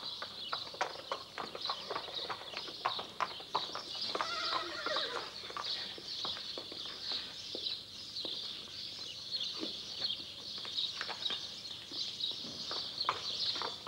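Horses' hooves clip-clopping irregularly on a hard yard as horses are led out and moved about, with one horse neighing about four seconds in.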